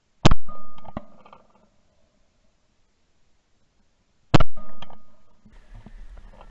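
Two shotgun shots about four seconds apart, each a sharp crack with a short dying tail and a few lighter clicks after it.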